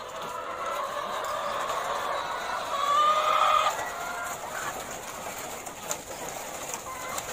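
A shed full of caged laying hens clucking and calling over one another, with one louder drawn-out call about three seconds in.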